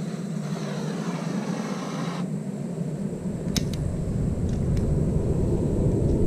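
New Vevor melting furnace being started: a steady hum with a falling sweep cuts off about two seconds in, a few sharp clicks follow, then the burner's low rumble builds and grows louder.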